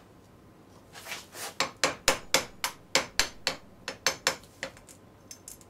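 A metal hand tool working at the edge of a hybrid IC's metal lid held in a bench vise, prying it off: a quick run of about fifteen short, sharp strokes, three or four a second, starting about a second in and dying away near the end.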